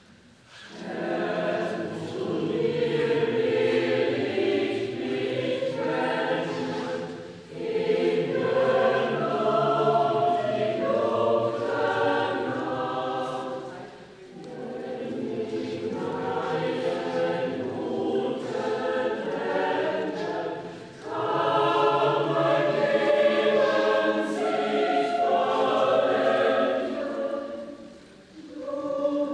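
A choir singing in four long phrases of about seven seconds each, with short breaks between them.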